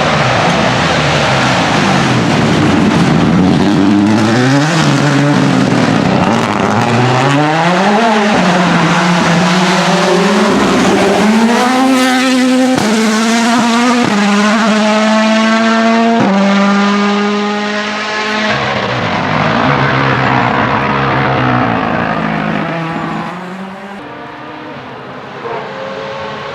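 Rally car engine revving up and down, then accelerating hard with several quick upshifts, the pitch climbing and dropping at each gear change, before fading as the car pulls away.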